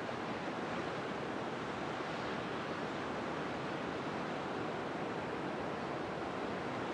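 Ocean surf breaking on a sandy beach, heard from a lookout high above it as a steady, even wash with no single wave standing out.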